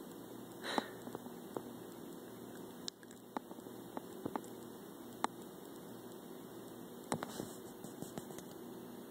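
Quiet room tone: a steady low hum with a dozen or so faint, irregularly spaced clicks and ticks.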